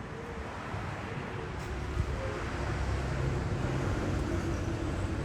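Steady low rumble of outdoor background noise, with a faint click about two seconds in.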